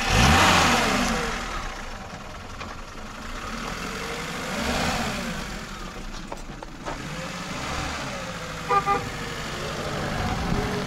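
VAZ 2121 Niva's carburetted four-cylinder petrol engine revving as the car pulls away, with a rising swell at the start and another a few seconds later as it drives off across the snow. Two short beeps near the end.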